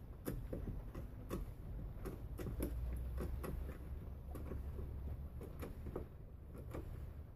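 Miniature aluminum floor jack being pumped by its handle, giving a string of light clicks, about two a second, as it raises a scale model truck.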